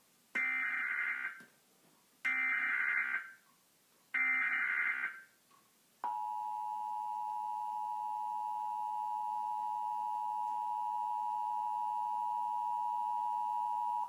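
Emergency Alert System Required Monthly Test: three short bursts of SAME digital header data, each about a second long. About six seconds in, the steady EAS two-tone attention signal starts and holds for about eight seconds.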